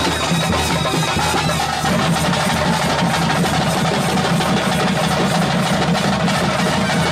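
Loud, dense drum-led music with other instruments playing along: the ritual music that accompanies a Tulu nema spirit-worship performance.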